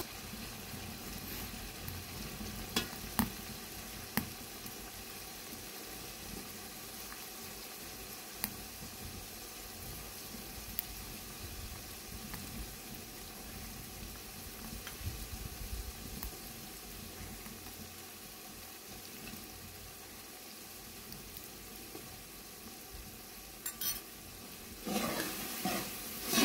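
Food frying in a pan: a steady sizzle, with a few light clicks now and then and a louder stretch near the end.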